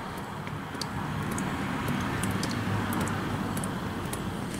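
Old manual-transmission fluid draining from the open drain hole into a pan, a steady splashing trickle with faint scattered ticks.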